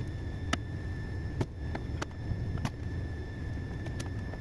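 Steady low machine hum with a steady high-pitched whine from running air-conditioning machinery, with several light sharp clicks from tools being handled.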